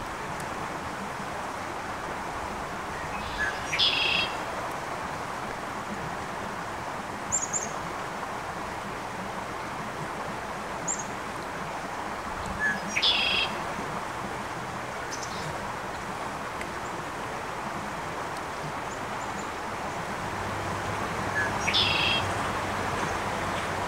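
A songbird repeats the same short phrase three times, about every nine seconds, with a few brief high chirps in between. Under it runs the steady rush of a flowing creek.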